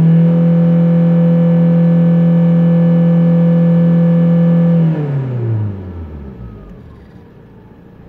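Opel Insignia 2.0 CDTi four-cylinder turbodiesel held at high revs, about 4,500 rpm, heard from inside the cabin. About five seconds in the throttle is released and the revs fall away toward idle.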